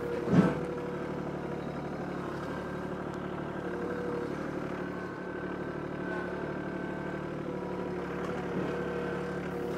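Kubota B2261 compact tractor's three-cylinder diesel engine running steadily while the tractor works a front-loader stump ripper. There is a short louder sound about half a second in.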